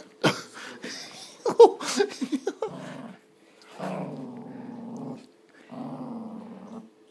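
Small dog growling in three long, rough stretches while tugging on a plush toy in play. A quick run of short, sharp sounds comes about two seconds in.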